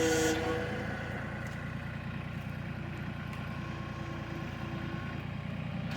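Mahindra tractor's diesel engine running steadily while it works a backhoe, with a brief whine near the start and a fainter one in the middle.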